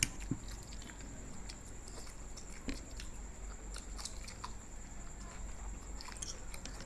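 Chewing and biting into food, noodles, egg omelette and raw salad, with scattered small clicks and crunches.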